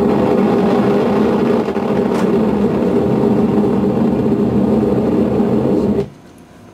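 Loud, steady buzzing static from an EMG monitor's speaker, picking up electrical activity from the forehead muscle through a wired injection needle, cutting off suddenly about six seconds in.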